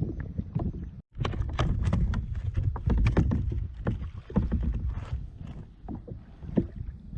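Water splashing and slapping against a fishing kayak's hull, with irregular knocks and a low wind rumble on the microphone. The sound cuts out for an instant about a second in.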